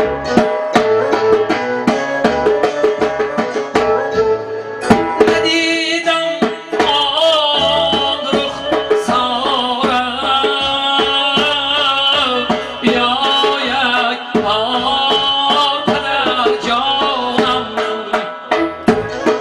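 Music played on a Korg Pa-series arranger keyboard: a steady, quick drum-machine rhythm under a lead melody with wavering, ornamented notes.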